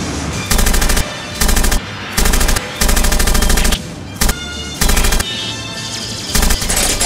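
Dubbed machine-gun sound effect for a Veritech's gun pod: about seven short bursts of rapid fire, the longest a little under a second, over background music.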